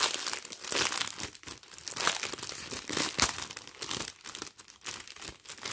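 Clear plastic packaging crinkling and rustling as hands handle a sleeve of small diamond painting rhinestone and bead packets, with many small, irregular crackles.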